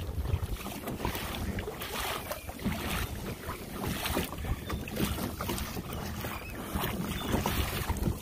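Wind buffeting the microphone over the wash of sea water against a kayak, gusting unevenly.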